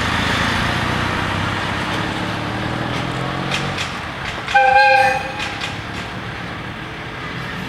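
Road traffic noise with a motor vehicle's engine running past, and a single short horn blast, the loudest sound, about four and a half seconds in.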